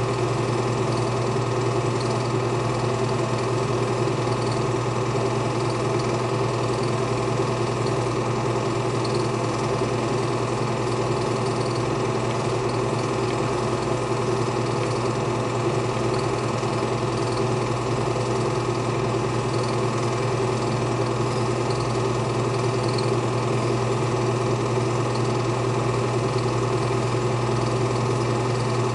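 Home-movie film projector running during playback of a silent reel: a steady, unchanging motor hum with light mechanical ticking.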